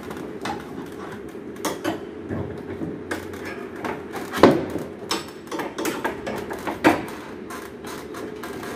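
Scattered metallic clicks and knocks of a wrench and flare nuts as copper refrigerant pipes are fitted and tightened onto an air conditioner indoor unit, with rustling of pipe insulation brushing close to the microphone. A steady low hum runs underneath, and the loudest knock comes about four and a half seconds in.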